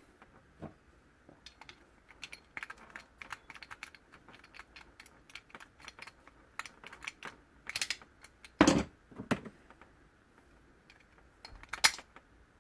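Irregular light clicks and taps of hand tools on the small metal parts of a VW Scirocco steering lock and ignition barrel being taken apart. A louder knock comes about two-thirds of the way through, and a quick cluster of sharp clicks comes near the end.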